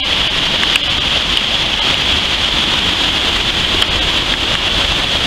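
Stream swollen by a thunderstorm, rushing in flood: a loud, steady wash of churning whitewater.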